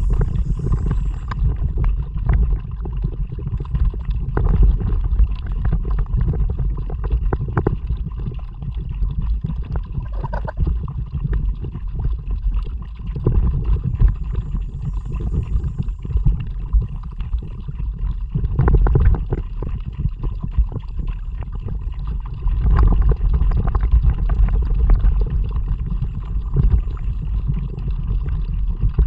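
Kayak being paddled: the paddle blades splashing and water gurgling along the hull, irregular throughout, under a heavy low rumble of wind buffeting the action camera's microphone.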